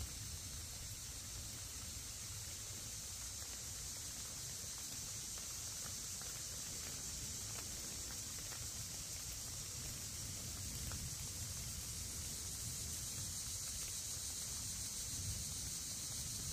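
Steady high-pitched buzz of an insect chorus in late-summer woods, over a low rumble of wind.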